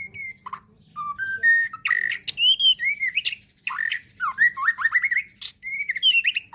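Songbird singing a rapid, varied song of whistled slurs, up- and down-sweeping notes and harsh squawky notes, in phrases broken by short pauses.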